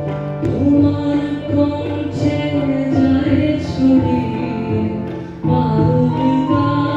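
Male vocalist singing a Bengali song to tabla accompaniment over held low instrumental tones; the music dips briefly and comes back in about five and a half seconds in.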